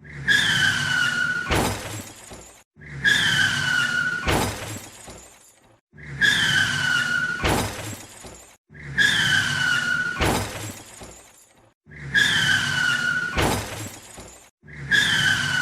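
Car-crash sound effect: tyres squeal for about a second and a half, slightly falling in pitch, then a loud crash with shattering glass. The same squeal-and-crash repeats about every three seconds, five times over.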